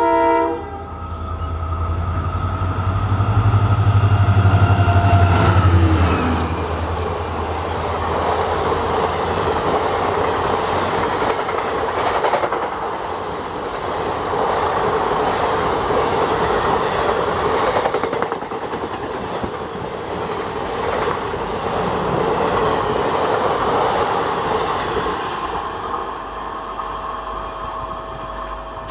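A WDP-4 diesel locomotive sounds a short horn blast, then its EMD 16-cylinder two-stroke engine goes by working hard under the load of a 24-coach train, a heavy low rumble with a high whine whose pitch drops about six seconds in as the locomotive passes. The long rake of passenger coaches follows, wheels clattering over the rail joints for some twenty seconds and fading near the end.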